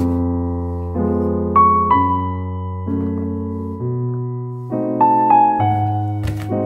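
Background piano music: slow, held notes and chords changing about once a second. A brief knock sounds near the end.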